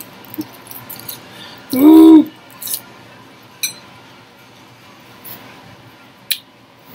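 A person chewing a mouthful of salad with small sharp clicks and taps. About two seconds in there is one short hummed "mm" that rises and falls in pitch, the loudest sound here.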